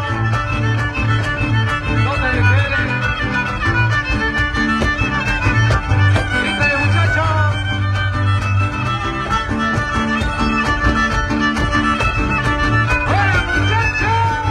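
Huastec string trio playing a son huasteco live: a violin leads with a sliding melody over steadily strummed jarana huasteca and quinta huapanguera, whose bass notes keep an even rhythm.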